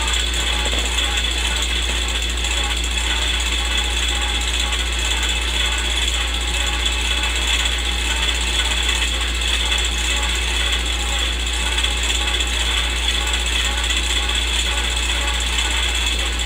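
Film projector sound effect: a steady mechanical clatter of the projector running, over a low hum and constant hiss, with no change throughout.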